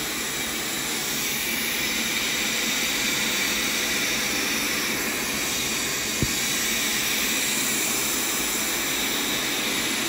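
Hoover Power Scrub XL carpet cleaner running, its suction motor pulling water up out of a fabric couch cushion through the upholstery hand tool: a steady rushing hiss. A brief click about six seconds in.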